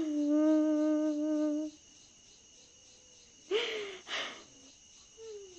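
A woman crying: a long, moaning note held for nearly two seconds, two sharp sobbing breaths a little past halfway, and another low moan starting near the end.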